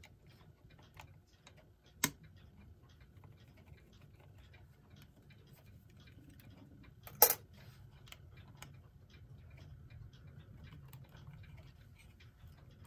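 Small metallic clicks and taps of a tool working the nuts that hold a clock movement's plate, with two sharper clicks about two and seven seconds in.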